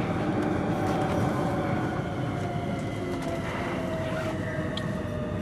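Nuremberg U-Bahn DT3 train running, heard from inside the car: wheels rumbling on the rails with a steady whine from its electric drive, as it comes out of the tunnel into a station.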